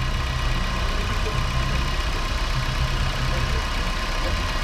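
Nissan Versa's four-cylinder engine idling steadily as it warms up.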